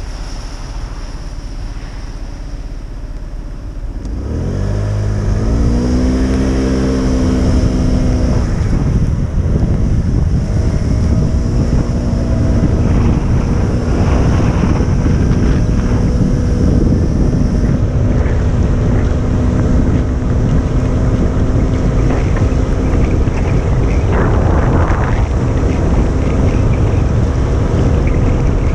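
Motorcycle engine pulling away about four seconds in, its pitch climbing as it speeds up, then running steadily at cruising speed. Heavy wind noise buffets the microphone throughout.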